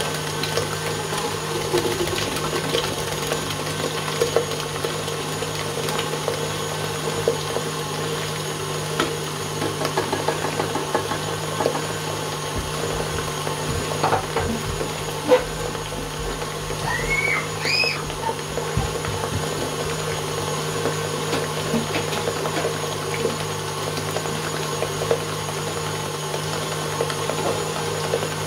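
Electric stand mixer running at a steady speed, its motor humming evenly while the beater works a thick chocolate mixture in a steel bowl, with small ticks from the beater against the bowl. Two short, high, rising chirps sound a little past halfway.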